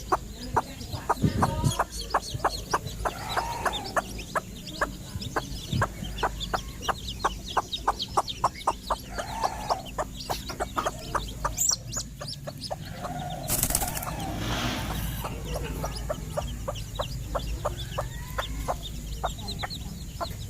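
A hen clucking softly while pecking at feed, a quick run of sharp taps at about three or four a second. About two-thirds of the way through comes a brief rustling burst.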